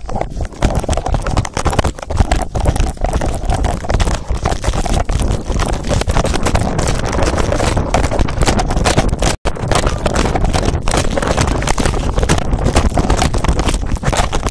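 Loud, continuous scraping, rubbing and buffeting from a phone microphone taped to a moving dog's collar, with wind on the microphone and rapid knocks as it bounces. The sound cuts out briefly about nine seconds in.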